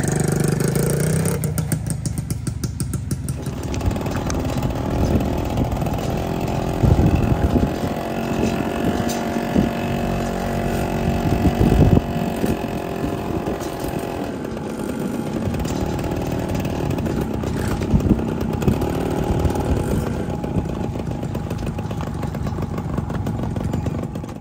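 Motorcycle engine running steadily as it is ridden, with road and wind noise and a couple of louder knocks near the middle.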